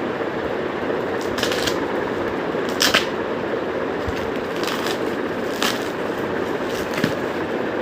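Packaging being unwrapped by hand: a few short rustles and crinkles, the loudest about three seconds in, over a steady background hum.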